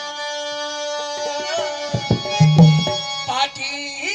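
Instrumental break in a Marathi folk song: steady held melody notes over hand-drum strokes, with the drumming loudest a little past halfway.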